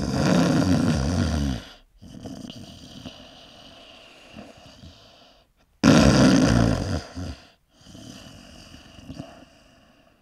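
A man snoring heavily: two loud snores about six seconds apart, each followed by several seconds of quieter breathing.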